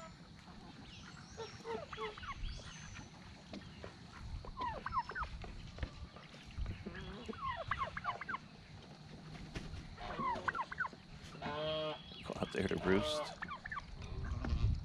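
Mixed poultry calling: scattered short chirps and clucks from chickens and other fowl, with a turkey tom gobbling in louder rattling calls twice near the end.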